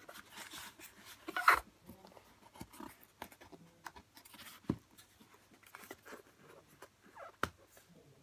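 Cardboard box being handled and opened: scraping and rustling of cardboard with a few sharp taps. The loudest scrape comes about a second and a half in.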